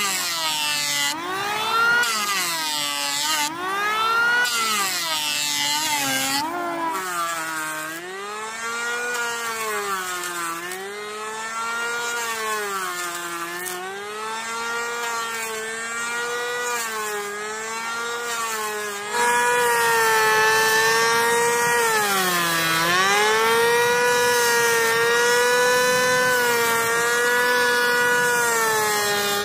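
Power tool working wood, its motor whine dipping in pitch and recovering again and again as it is loaded. It gets louder about two-thirds of the way in and cuts off suddenly at the end.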